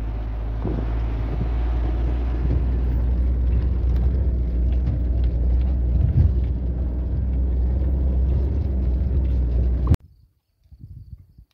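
A car engine running steadily as the vehicle drives along a dirt track, a loud low rumble with road and wind noise. It cuts off abruptly near the end, leaving only faint small sounds.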